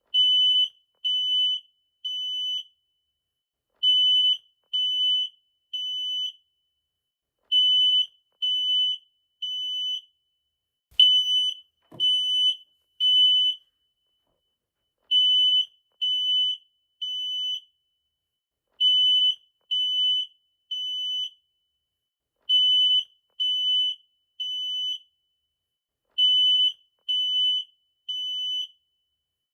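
Smoke detector alarm beeping in the temporal-three evacuation pattern: three high-pitched beeps of about half a second each, then a pause of about a second and a half, repeating over and over. A brief click sounds at the start of one set about eleven seconds in.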